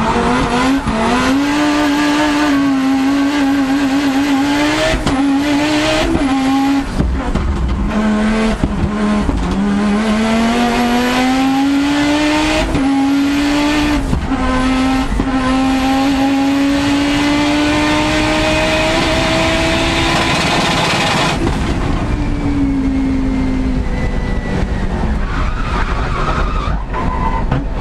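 Audi Quattro S1 Group B rally car's turbocharged five-cylinder engine, heard from inside the car under hard acceleration. Its note climbs and breaks sharply again and again through quick gear changes, then rises in one long pull. About two-thirds of the way through it lifts off and the note falls away.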